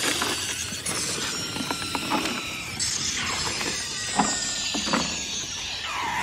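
Dry ice pellets being scooped and spread by gloved hands: a continuous rattling hiss with many small clicks, plastic sheeting crinkling, and thin squealing tones where the dry ice presses against the frozen metal parts.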